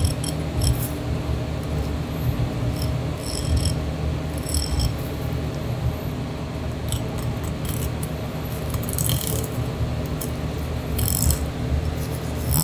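Kitchen knife cutting a flatfish's fillet away from its bones, the blade clicking against the bones in short irregular runs, over a steady low hum.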